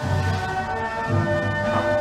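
Background music: sustained chords over a pulsing bass line.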